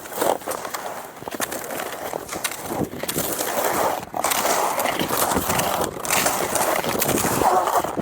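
Cross-country skis scraping and gliding over snow in repeated strides, a noisy hiss broken by short pauses between pushes, louder from about three seconds in.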